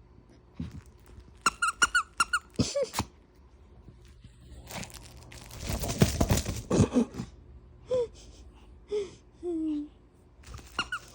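Dog chewing a squeaky toy: a quick run of high squeaks about a second and a half in, chewing and rustling around the middle, and a few shorter, lower, falling squeaks near the end.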